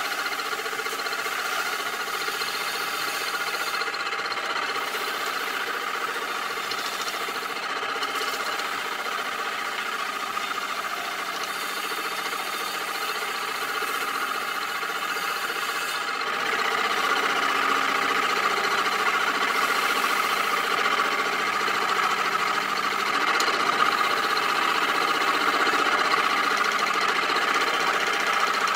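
Homemade cymbal lathe's motor running steadily, a crash cymbal spinning on it, with sandpaper held against the turning bronze rasping over it. The sound gets louder about halfway through.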